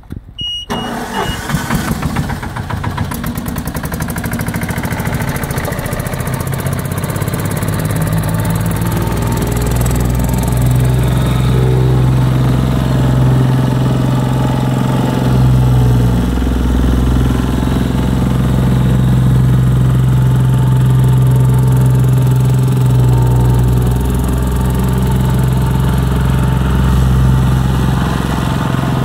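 BOMAG BPR 65/70 D reversible vibratory plate compactor: its diesel engine starts about half a second in and runs, coming up to full speed around ten seconds in. The plate then vibrates across loose gravel with a steady, deep, loud drone.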